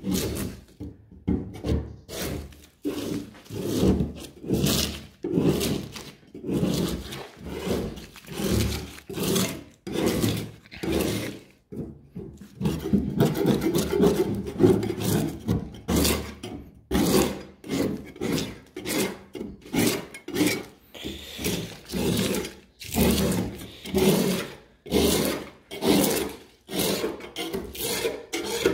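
Repeated hand scraping strokes on a steel car door panel, stripping paint and body filler that a blowtorch has softened. The strokes come about once a second, running together in a longer busy stretch near the middle.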